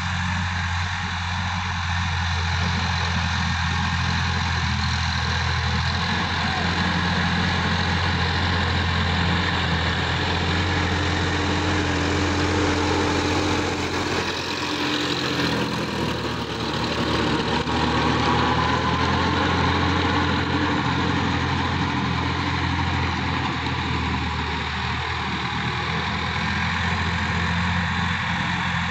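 Sonalika tractor's diesel engine running steadily under load, driving a rotary tiller through dry soil. The sound shifts briefly about halfway through as the tractor passes close.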